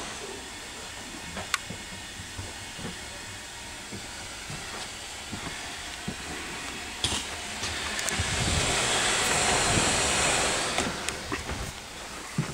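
Steam locomotive hissing steadily, with a louder rush of steam swelling up about eight seconds in and easing off after a few seconds; scattered clicks and knocks.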